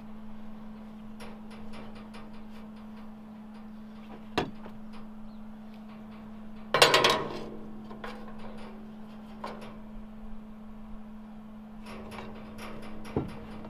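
Steel parts being handled and fitted against a truck rack's metal mesh: light metal clinks and knocks, with one louder clatter about seven seconds in. A steady low hum runs underneath.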